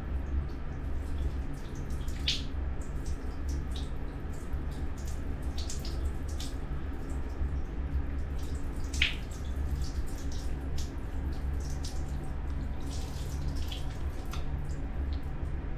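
Water poured from a plastic dipper over a wet baby monkey, running off and dripping into a plastic tub. Irregular drips and small splashes, the sharpest about two seconds in and about nine seconds in, over a steady low hum.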